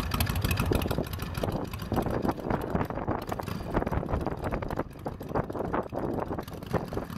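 Harley-Davidson Shovelhead V-twin engine running through a newly fitted muffler: an uneven, loping exhaust beat that fades as the motorcycle rides away.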